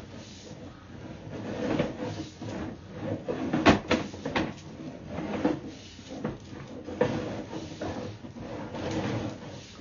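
Sewer inspection camera's push cable being pulled back out of the drain line, with irregular rattling, scraping and knocks; the loudest knock comes about three and a half seconds in.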